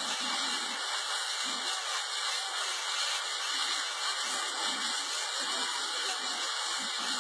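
Steady rushing hiss of a propane fire: a tall jet of burning gas from a stationary tank, mixed with the spray of firefighting hose nozzles playing water on it.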